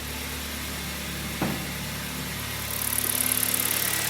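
Freshly rebuilt Hyundai Solaris G4FC 1.6-litre four-cylinder engine idling steadily, running evenly without knocks or extraneous noises. A single click comes about a second and a half in, and a high hiss rises over the last second or so.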